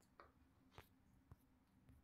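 Near silence: room tone with a few faint, short taps.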